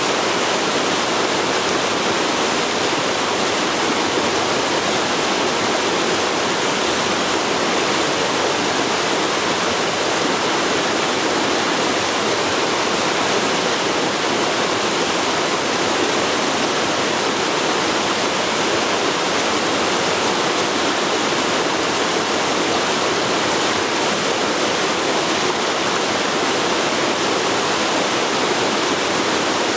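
Forest river flowing over rocks, a steady rushing of water.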